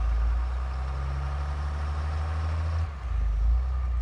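Truck engine running under load while it tries to tow a stuck truck out of deep snow. The steady low engine note shifts lower and grows louder about three seconds in.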